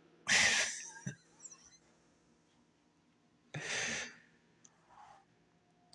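A man's two short breathy exhales, a louder one about a third of a second in and a quieter one near four seconds, like a laugh let out through the nose and mouth.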